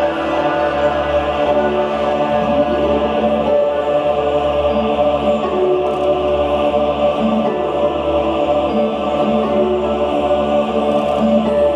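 Runway show music played over the hall's sound system: layered, sustained held tones over a steady low drone, with a sweep rising about two and a half seconds in.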